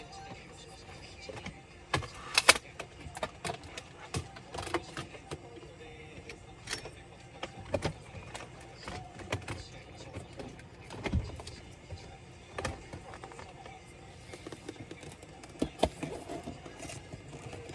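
Irregular clicks and knocks of a Dell Latitude 3301 laptop's parts being handled and worked on, the loudest cluster about two and a half seconds in.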